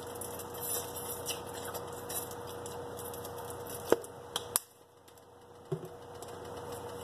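Melted butter with minced garlic crackling and sizzling in a steel pot on the stove, a steady fine ticking. A few sharp clicks come about four seconds in, then the sound drops almost to silence for about a second before the sizzle returns.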